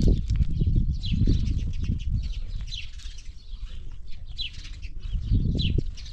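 Small birds chirping: short, high, falling chirps repeating roughly once a second. Underneath, louder irregular low rumbles and thumps, strongest in the first two seconds and again near the end.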